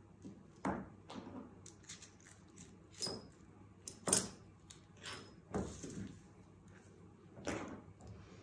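Paper pattern pieces, silk fabric and pins being handled on a cutting table: about seven short rustles and light clinks and knocks, the loudest about four seconds in.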